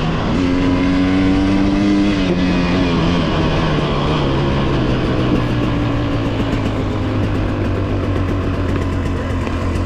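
A two-stroke dirt bike engine running under throttle. The revs hold high for about two seconds, ease down over the next two, then stay steady and lower.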